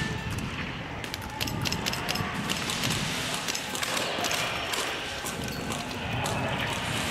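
Airsoft guns firing: a string of irregular sharp clicks and clacks, some in quick runs.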